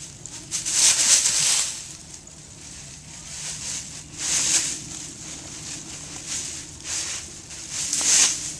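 Dry fallen leaves rustling and crunching in several short bursts as an American Staffordshire Terrier pushes her snout down through the pile, hunting for a mouse underneath.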